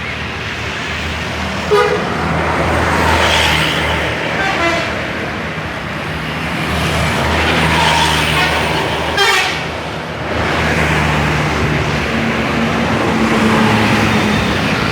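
Subur Jaya bus's telolet horn tooting over its running engine, the horn swelling and fading several times. Two brief sharp sounds stand out, about 2 and 9 seconds in.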